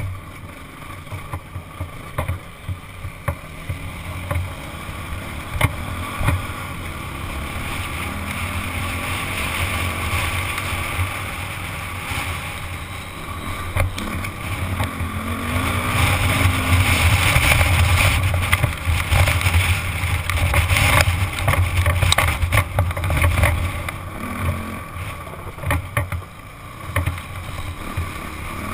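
Honda CRF dirt bike's single-cylinder four-stroke engine running under way on rough trail, getting louder about halfway through as the bike picks up speed, with a few sharp knocks over the rocky ground.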